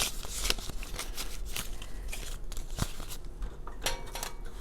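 Paper banknotes rustling and crinkling as they are handled and set into a cash box's bill tray, with small irregular clicks and taps.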